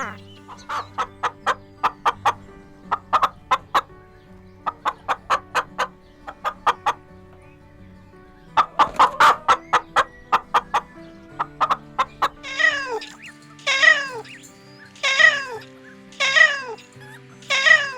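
Groups of rapid, short clucking calls, three to six at a time. About two-thirds in, a kitten starts meowing over and over, one meow about every second and a half, each one falling in pitch. A soft music bed runs underneath.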